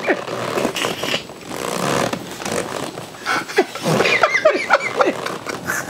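A man and a woman laughing hard together: breathy, gasping laughter at first, then higher-pitched bursts of laughter from about three seconds in.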